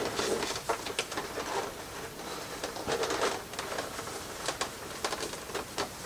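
Handling noise: cloth rustling and light clicks and taps of plastic parts, irregular and scattered, as a costume is worked over a plastic animatronic frame.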